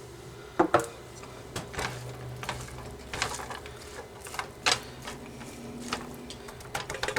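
Irregular clicks, knocks and scrapes of kitchen utensils against a pan and cans, about a dozen sharp hits spread unevenly, while green chiles and enchilada sauce go into a skillet of ground beef. A low steady hum runs underneath.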